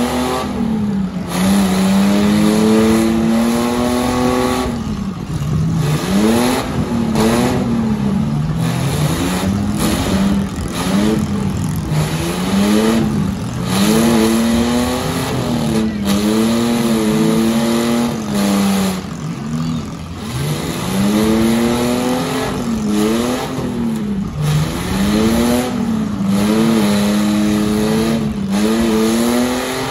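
Demolition derby car's engine revving hard over and over, its pitch climbing and falling roughly every two seconds.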